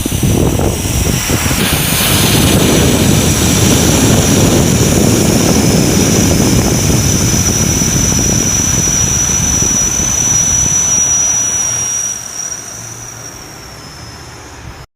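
Jet airliner taking off: a loud, steady roar of jet engines with a high whine on top. The roar falls away about twelve seconds in and then cuts off suddenly.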